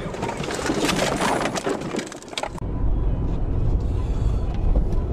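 A car in snow-driving footage: a dense crackling, scraping noise full of small clicks for about two and a half seconds, then an abrupt switch to a steady low rumble.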